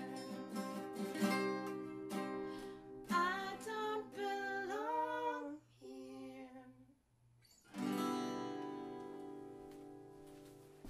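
Two acoustic guitars strummed under a singing voice, then a near-silent gap. A final chord is struck about eight seconds in and left to ring out and fade.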